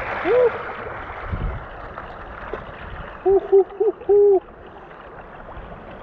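River water rushing and splashing against the bow of a sea kayak moving through current, splashiest at the start. About halfway, four loud hooting notes sound close by, the last one the longest.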